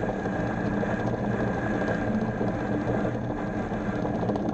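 Small bench lathe running steadily, its motor and belt drive humming, while the cutting tool turns down a spinning acrylic blank.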